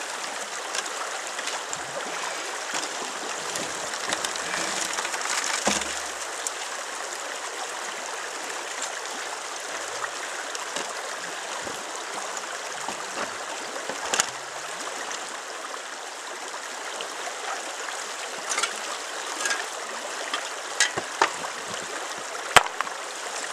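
Shallow river rushing steadily over rocks, with a brief louder swell early on and several sharp clicks of stone or metal in the second half, the loudest near the end.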